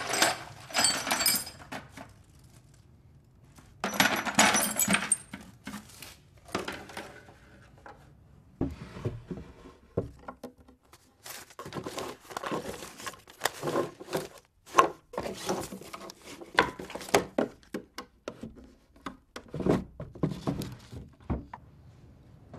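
A hand brush sweeping in two short bursts near the start. After that comes a long run of scattered knocks, clicks and rustles as things are shifted about in a wooden drawer.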